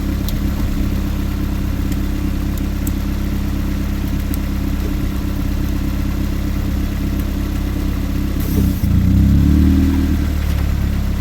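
Toyota engine running steadily, with a few faint clicks over the top. About eight and a half seconds in there is a short hiss, and the engine note drops and grows louder for a second or so before settling back.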